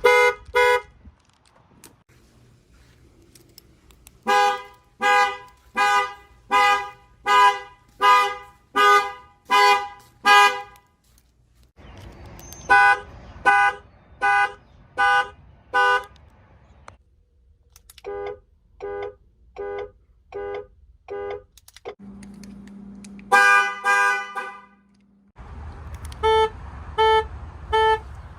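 Car alarms sounding by pulsing the car horn in evenly repeated honks. Several alarms follow one another: a steady run of about one and a half honks a second, then runs with faster honks and different horn pitches, with a short steady low hum before the last run.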